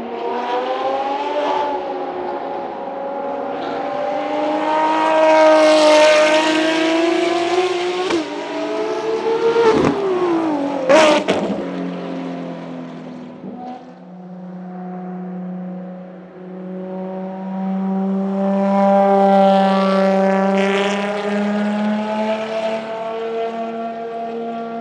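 Ferrari FXX K Evo's V12 at high revs, its note climbing as the car nears and then dropping sharply as it goes by, with a sharp crack just after. A second pass follows: the V12 note builds steadily as the car comes up the straight, loudest a few seconds before the end.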